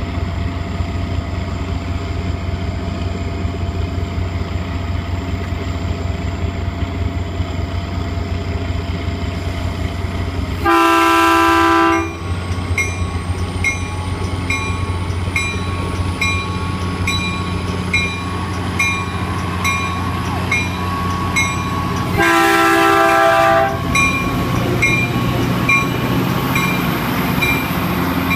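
Caltrain EMD F40PH diesel locomotive idling with a steady drone, then sounding two horn blasts about eleven seconds apart, each just over a second long. After the first blast a bell rings steadily, and near the end the engine note rises as the train starts to pull away.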